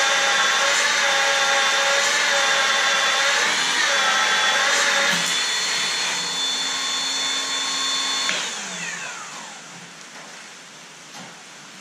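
Milwaukee magnetic drill running under load as it drills steel plate, with a steady high motor whine that sags briefly near four seconds in. About five seconds in the pitch steps up and the sound gets lighter. About eight seconds in the motor is switched off and winds down with a falling whine.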